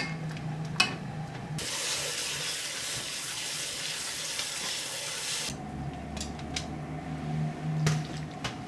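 Water running for about four seconds, starting and stopping abruptly, with a few sharp clicks and knocks before and after it.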